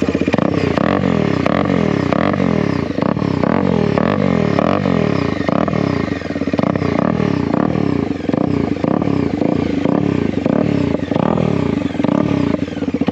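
Bajaj Dominar 250's single-cylinder engine running in neutral with its exhaust muffler removed, giving a loud, uneven open-exhaust note.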